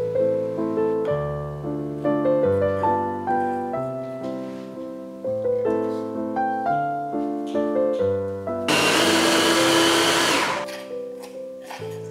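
Piano music throughout; about three-quarters of the way in, a small electric food chopper runs for about two seconds, grinding nuts, and is the loudest sound.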